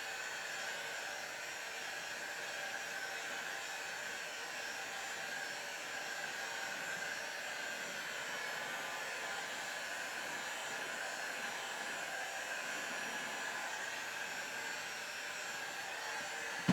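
Electric heat gun running steadily: an even rushing blow with a faint whine in it, warming blow-molded plastic to soften it.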